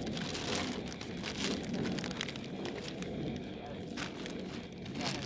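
Crackling static from a ghost-hunting spirit-box device, choppy and broken by garbled, speech-like fragments.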